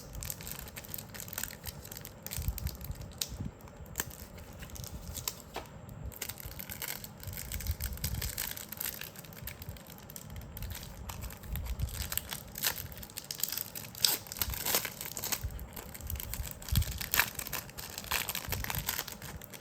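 Card packaging being torn and crinkled open by hand: irregular rustling, crackling and tearing.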